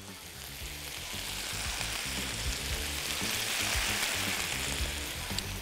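Mixed vegetables sautéing in hot oil and butter in a steel pan: a steady sizzle that grows louder over the first few seconds and eases slightly near the end. Soft background music runs underneath.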